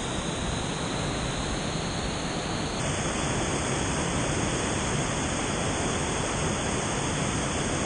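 Steady rush of a big whitewater rapid on a river running very high and full.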